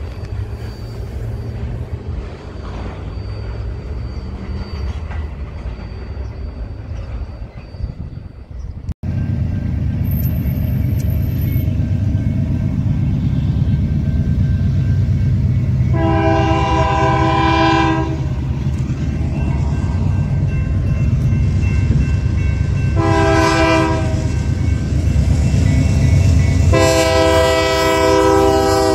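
Union Pacific diesel locomotive air horn sounding for a grade crossing: a long blast, a short one, then another long one. Under the horn, the heavy low rumble of the locomotives and train passing close by. Before that, a steadier rumble cuts off abruptly about nine seconds in.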